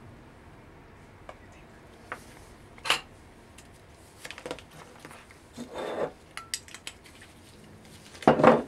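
Scattered small clicks and clinks of things being handled on a tabletop, with a brief rustle partway through. A louder rustling handling noise comes near the end as a dark plastic sheet is brought in beside the wooden soap mold.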